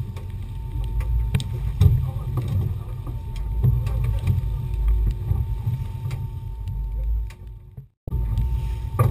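Steady low rumble of wind and water around a moving fishing boat with twin outboard motors, with scattered knocks and thumps from the deck. The sound drops out abruptly for a moment near the end.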